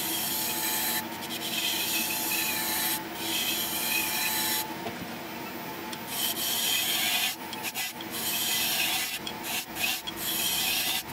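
Wood lathe running with a steady hum while a turning tool scrapes the outside of a spinning wooden bowl in repeated strokes, each a second or two of hissing cutting noise with short breaks between.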